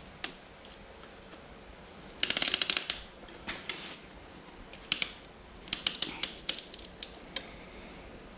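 Piston ring compressor being ratcheted tight around the piston rings. A quick run of ratchet clicks comes about two seconds in, followed by scattered single clicks. A faint steady high tone runs underneath.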